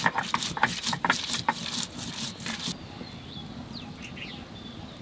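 Sil-batta grinding: the stone muller scraped back and forth over the stone slab in quick strokes, several a second, grinding spices to a paste; the strokes stop abruptly about two and a half seconds in. After that, birds chirp in short falling calls.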